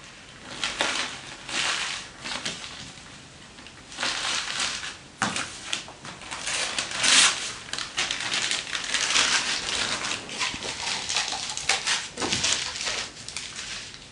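Newspaper being crumpled and scrunched by hand around small dog treats, a loud crinkling rustle that comes and goes in uneven spells.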